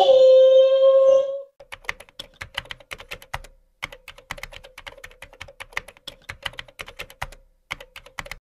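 Keyboard-typing sound effect: rapid key clicks, about five or six a second, with two short breaks. It is preceded by a steady held tone lasting about a second and a half.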